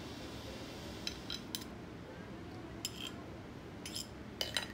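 Light clinks of a metal knife against ceramic plates, in small clusters of two or three, as a slice of flan is lifted from the serving plate onto a small plate.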